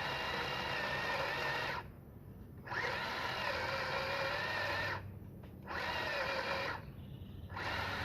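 Worx WG323 20V cordless pole saw's electric motor and chain running in bursts, cutting out briefly three times.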